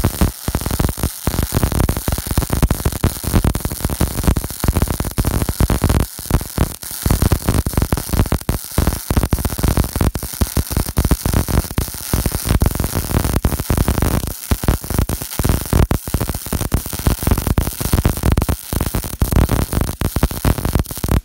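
Robotic wire-feed (MIG) welding arc from an OTC power source, constant-voltage at about 223 amps and 18 volts, laying a smooth circular-weave bead: a loud, continuous crackling hiss with rapid irregular flickers. It strikes at once and cuts off abruptly at the end of the weld.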